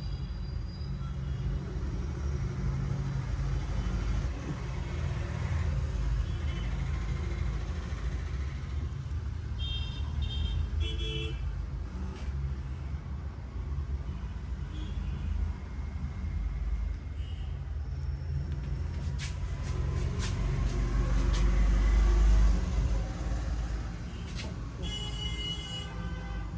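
Road traffic: a steady rumble of passing cars that swells as a vehicle goes by near the end, with short horn toots twice. A few sharp clicks come just before the loudest pass.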